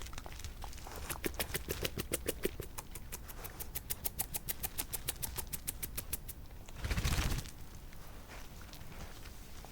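European badgers grooming each other at close range: a rapid run of sharp clicks, about eight a second, from their teeth nibbling through fur, lasting about five seconds. About seven seconds in, a short, loud bump with a deep rumble.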